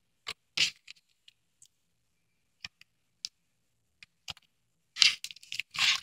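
Slime being worked out of its plastic container by hand: scattered small clicks and brief scrapes, with a louder cluster of rustling scrapes about five seconds in.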